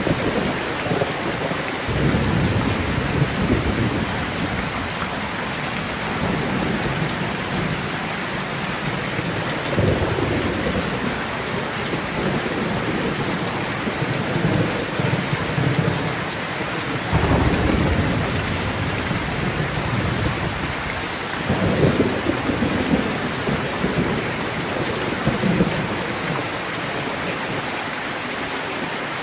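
Steady heavy rain hissing, with rolling thunder rumbling low four times, swelling in and dying away over several seconds each.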